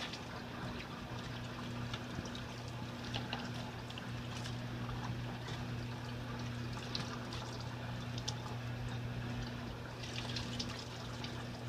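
Rinse water draining out of the wash tub of an XtremePowerUS portable twin-tub washer, a steady trickling pour. Wet clothes rustle now and then as they are handled, over a steady low hum.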